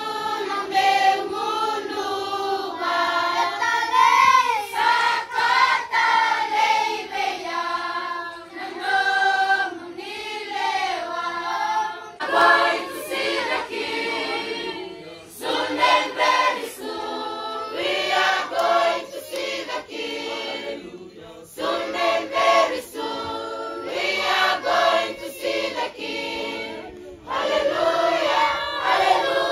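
A choir of Fijian children and adults singing together, in phrases with brief breaks between them.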